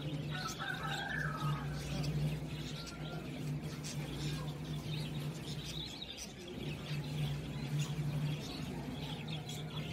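Light clicks and rustles of hands handling wires and motor parts over a steady low hum that drops out briefly about halfway through. A few faint chirps come near the start.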